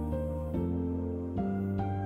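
Slow, gentle instrumental background music: held melody notes entering every half second or so over a sustained low bass.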